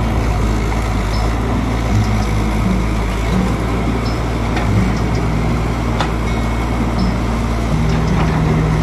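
Caterpillar hydraulic excavator's diesel engine running steadily under load while the bucket digs into brush and soil, with a few sharp clicks.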